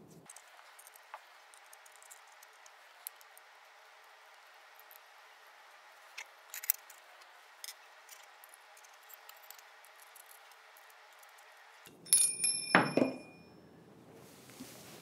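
Faint scattered clicks and clinks of metal telescope tube rings and mounting-plate hardware being handled and fastened, then a loud metallic clank with a brief ringing tone about twelve seconds in.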